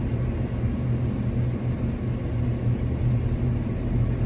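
Engine running steadily nearby: an even, low drone that does not change.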